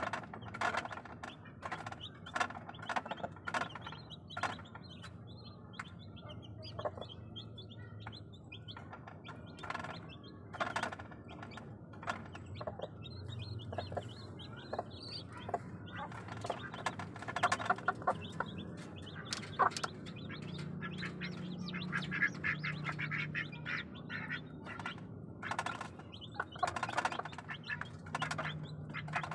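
Newly hatched Bangkok game-fowl chicks peeping over and over while their brooding mother hen clucks low and softly.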